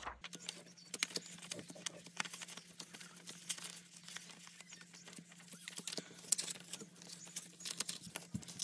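Paper banknotes rustling and flicking as a stack of cash is sorted and shuffled by hand: a run of quiet, quick crinkles and ticks.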